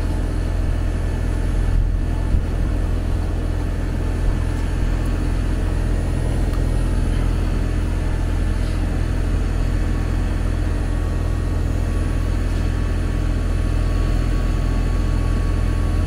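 Trane XV variable-speed central air conditioner's outdoor condensing unit running: a steady low hum from the compressor and condenser fan.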